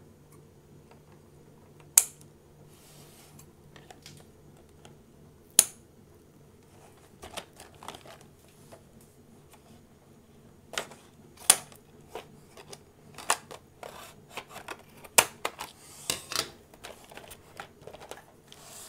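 Scissors cutting open a cardboard-and-plastic toy box: a scatter of sharp clicks and snips, sparse at first and coming thick and fast through the second half, with some rustling of the packaging.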